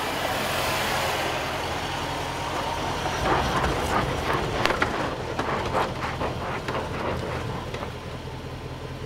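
2014 Range Rover Sport's supercharged V8 running steadily at low speed while the tyres crunch and crackle over dirt and gravel, the crackling densest from about three to seven seconds in.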